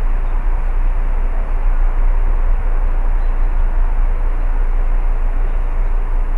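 Steady rumbling outdoor noise as a train approaches from far down the track, with no distinct horn or clatter yet.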